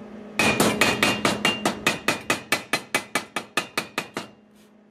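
Chipping hammer rapidly tapping slag off a fresh stick weld on a steel angle bracket, about six strikes a second with a light metallic ring. The strikes start about half a second in, weaken over the last second and stop about four seconds in.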